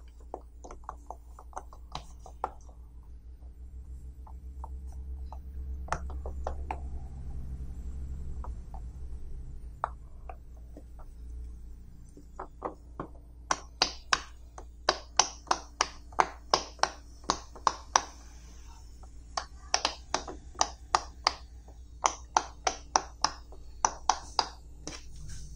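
Silicone pop-it fidget toy's bubbles being pressed in by fingers, giving a string of sharp pops. The pops are sparse at first, then come fast and louder from about halfway through.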